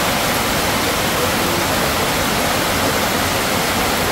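Heavy rain pouring down: a loud, steady hiss.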